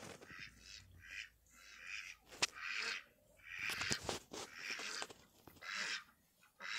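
Domestic ducks quacking over and over in short, harsh calls, with a couple of sharp clicks in between.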